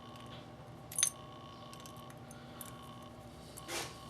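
Small metal parts of a double-hung window sash lock clinking as they are handled while its spring is unhooked: one sharp ringing clink about a second in, a few lighter ticks, over a faint steady hum.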